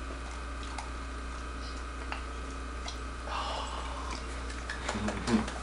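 A puppy eating food from a child's hand: a few faint clicks and smacks over the steady hum and hiss of a home camcorder soundtrack, with a short rustle about three seconds in.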